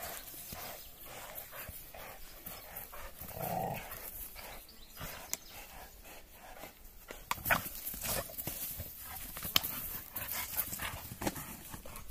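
Two American bulldogs playing tug-of-war on a flat canvas hose, with dog breathing and straining noises mixed with scattered sharp scuffs and knocks from the pulling.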